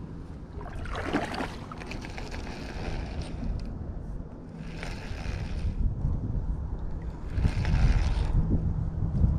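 Wind rumbling on the microphone aboard a kayak, with a few short swishes of water against the boat.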